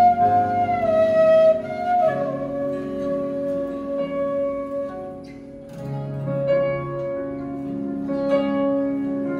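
Bamboo flute playing a slow melody that glides between notes, over sustained keyboard chords.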